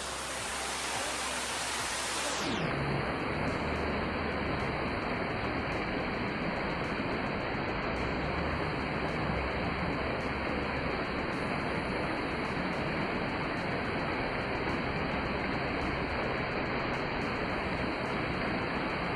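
Waterfall water rushing, a steady even hiss of falling water, brighter and hissier for the first two seconds or so.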